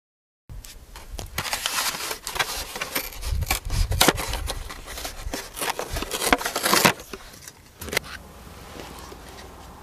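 A car tyre rolling over and crushing a brittle object: a dense run of crunches and cracks for about six seconds, followed by a single click and a steady low rumble.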